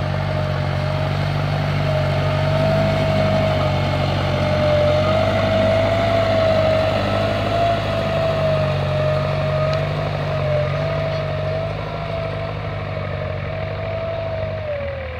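Deutz-Fahr tractor's diesel engine running steadily under working load while pulling a Lemken Achat 70 tine cultivator through stubble, a steady drone with a whine above it that wavers slightly in pitch. It grows a little quieter near the end as the tractor moves away.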